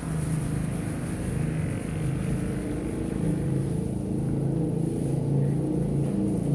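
A motor engine running with a steady low drone whose pitch shifts up and down.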